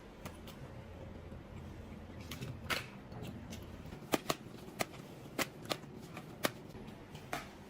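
A string of sharp clicks and taps, about ten of them, most in the second half, over low room hum.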